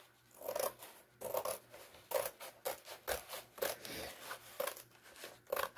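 Diamond painting canvas and its paper backing sheets being shifted and slid over cardboard and a frame on a tabletop: a string of short rustles and scrapes, about two a second.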